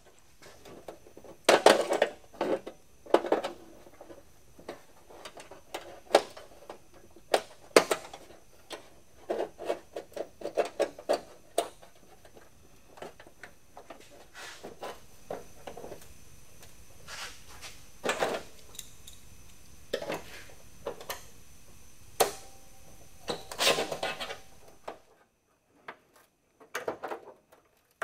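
Vise grips (locking pliers) being set and clamped on a sheet-steel patch panel and trunk lid: irregular metallic clicks and clinks of the pliers and tools against the steel, a few of them louder and briefly ringing.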